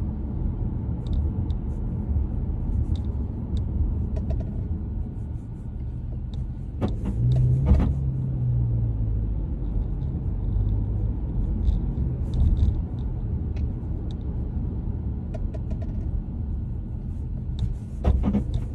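Steady road rumble inside a moving 2022 Subaru Legacy, with faint scattered ticks and rattles. Sharp knocks come about seven seconds in and again near the end: the noises the car makes going over bumps.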